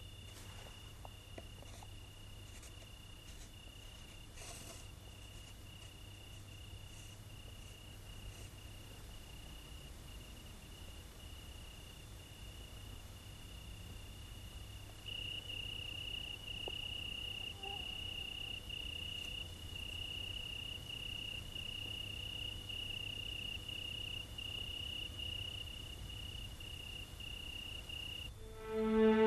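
Crickets chirping in a steady, pulsing trill that grows louder about halfway through, over a faint low hum.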